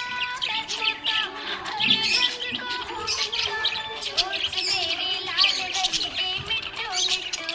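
Budgerigar chattering and warbling: a fast, unbroken run of chirps and wavering glides.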